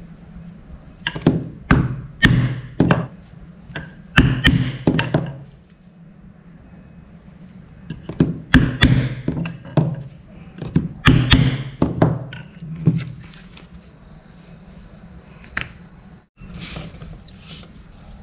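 Mallet blows on leatherworking tools: sharp knocks with a short ring, struck in quick runs of several blows with pauses between the runs, then a few single strikes near the end.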